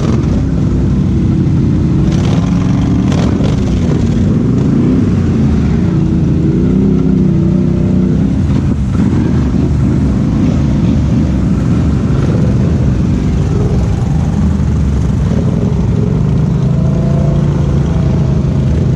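Several ATV engines running close by, revving up and down in the first half with their pitch rising and falling, then holding steadier.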